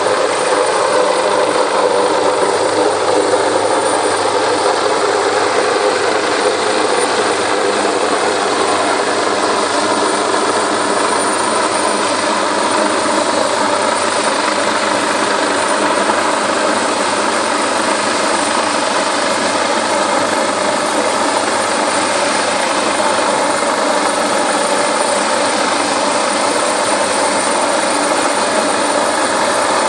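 Search-and-rescue helicopter hovering low, its rotor and turbine engines making a loud, steady din.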